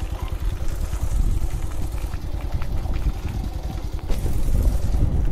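Wind buffeting the microphone: a low, fluttering rumble that gets stronger about four seconds in.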